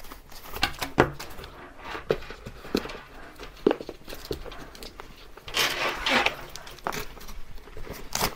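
Paper wrapping rustling and crinkling as it is pulled off and out of a handbag, with scattered light clicks and taps from handling the bag. The longest, loudest rustle comes a little past halfway.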